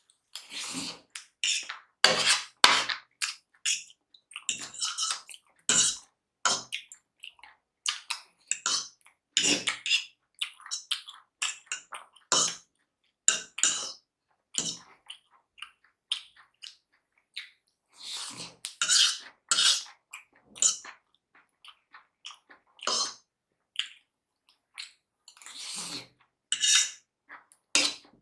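Close-miked eating of chowmein noodles: wet slurping and chewing sounds in irregular bursts with short pauses between mouthfuls.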